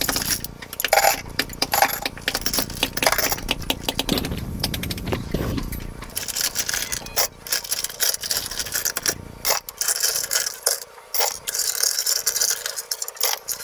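Long steel engine bolts clinking and rattling against each other, in quick irregular clinks, as handfuls are sorted between a metal pot and a plastic basin.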